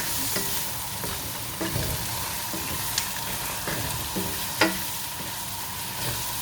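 Potato pieces sizzling as they fry in spiced oil in a pan while a spoon stirs and scrapes them, with two sharp knocks of the spoon against the pan.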